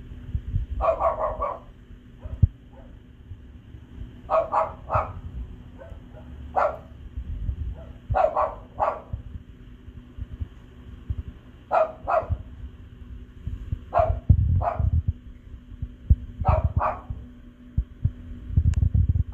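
A dog barking in quick runs of two to four barks, repeated every few seconds.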